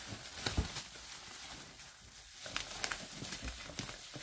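Light scattered taps, knocks and rustles of a cardboard box and packets being handled.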